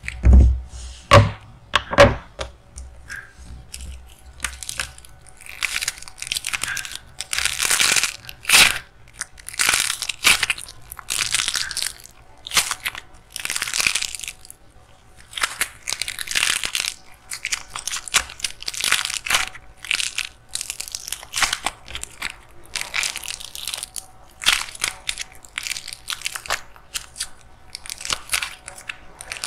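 Dried clay shell cut with scissors, with a few sharp snips in the first couple of seconds, then squeezed and crushed by hand: a long run of irregular crunching and crackling as the hardened clay breaks up.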